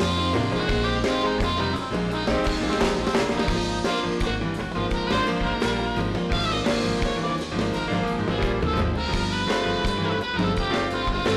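Live band playing an instrumental passage, with electric guitar over keyboards, bass and drums.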